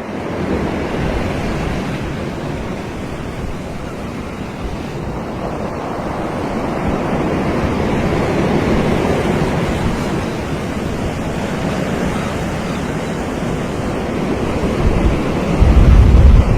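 Surf washing onto a beach in a steady, swelling hiss, with a low rumble of wind on the microphone near the end.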